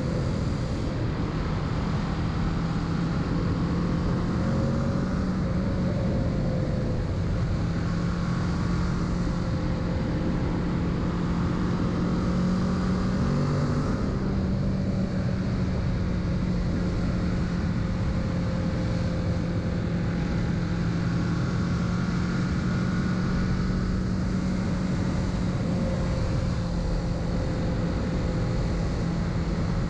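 Kawasaki Z650's parallel-twin engine running at a steady cruising speed, with small shifts in engine pitch, the largest about 14 seconds in, over steady wind noise.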